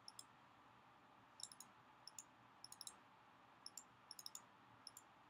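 Faint computer mouse button clicks, in quick pairs and small groups every half second or so, toggling a switch in an on-screen circuit simulator.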